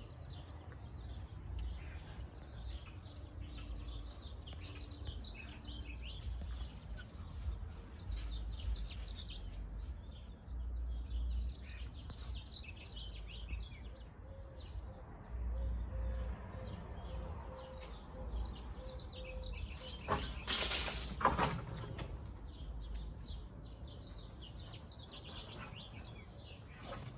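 Small birds chirping and calling off and on over a low steady rumble. About three-quarters of the way through comes a louder, short rushing noise lasting about a second.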